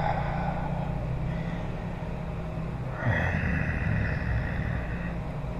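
A motor engine running, a steady low hum that swells louder about three seconds in and eases off again near the end.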